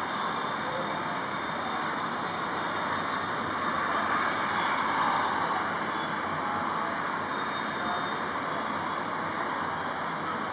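Steady traffic noise, a continuous hiss that swells slightly about halfway through.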